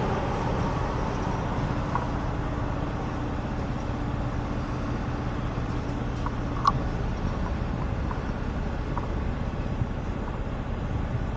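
Road traffic with a steady low engine hum that fades out about six or seven seconds in. There is one sharp click about two-thirds of the way through.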